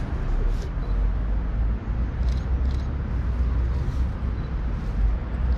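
Wind rumbling on the microphone outdoors, a steady low buffeting with an even hiss over it, and a few faint clicks.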